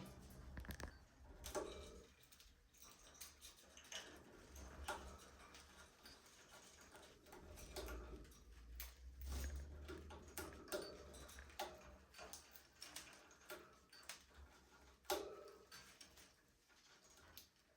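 Budgies in an aviary, heard faintly: scattered soft clicks and taps at an irregular pace as they move about, with a few brief quiet calls.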